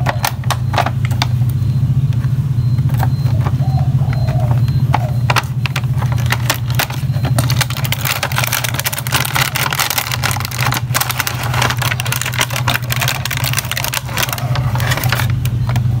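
Cardboard toy box and clear plastic packaging being handled: scattered clicks and scrapes as the box is turned and opened, then dense plastic crinkling from about halfway through as the tray is slid out. A steady low hum runs underneath throughout.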